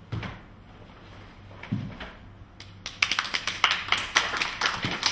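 Two dull thuds of bare feet stamping on a wooden floor during a kenpo karate form. About three seconds in, a small group starts clapping and keeps going.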